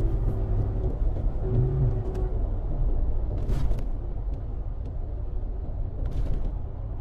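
Cabin rumble of a 2016 Toyota Tacoma's V6 engine and tyres on the road while driving, its spark plugs and ignition coils just replaced for a misfire. A hum comes and goes in the first two seconds, and there are a few short hisses.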